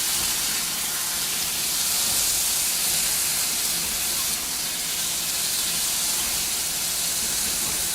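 Ground chicken frying in oil in a hot wok with ginger and garlic on medium-high heat: a steady sizzling hiss.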